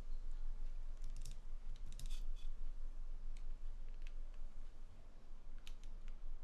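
Small, sharp plastic clicks and ticks from keyboard stabilizer parts being handled and worked with lube, coming irregularly in little clusters over a steady low hum.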